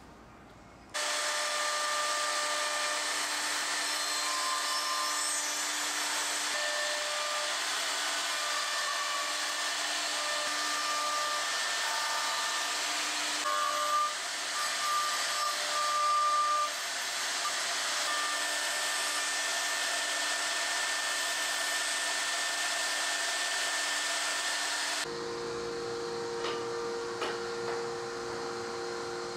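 Electric drilling spindle motor of a woodworking boring machine running at speed, a steady whining hiss that starts abruptly about a second in, swelling louder for a few seconds mid-way as the bit drills into a board end. It cuts off abruptly near the end, leaving a quieter steady hum.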